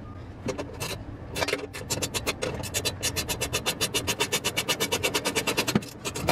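Hand ratchet clicking rapidly, about nine clicks a second for several seconds, with a few loose clicks at the start, as a nut is run down on the rear coilover.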